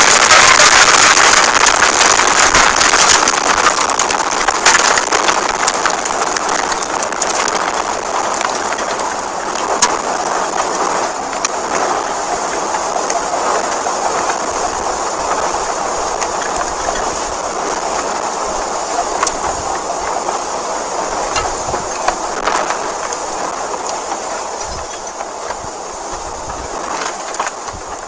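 Violent tornado passing directly over a house: a loud, steady rush of wind like a passing train, with scattered sharp cracks of debris, slowly fading toward the end.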